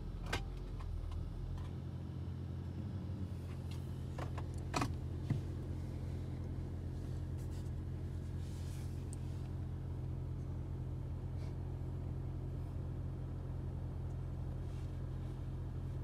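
A steady low engine drone, as of a motor vehicle running at idle. A few sharp clicks or knocks come through it near the start and about five seconds in.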